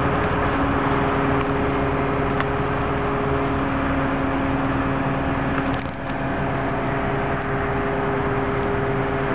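Mobile crane's engine running steadily, with a constant droning tone over a rushing noise; it dips briefly about six seconds in.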